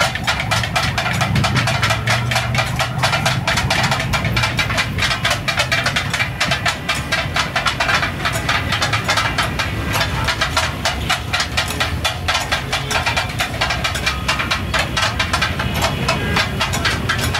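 Steel spatulas rapidly chopping and stirring katakat (goat brain and offal) on a large flat iron tawa: a fast, continuous clatter of metal-on-metal strikes over a low steady hum.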